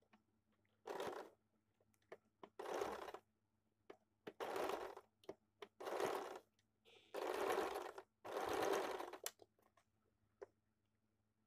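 Sewing machine stitching in six short runs of half a second to a second each, stopping and starting, with short clicks between runs.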